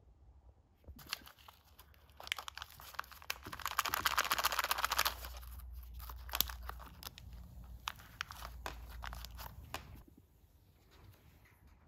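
Thin plastic packaging bag crinkling and rustling as gloved hands dig small injector seals out of it, densest for a couple of seconds near the middle, then dying away about ten seconds in.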